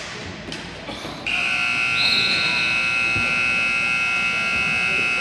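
Rink scoreboard buzzer sounding one long, steady, loud blare that starts about a second in and holds for about four seconds. Just before it come a few sharp clacks of sticks and ball off the faceoff.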